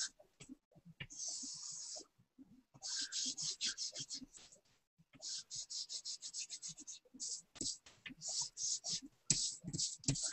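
Rapid scratching strokes of a pencil on paper, in runs of one to two seconds with short pauses between, with a few soft knocks near the end.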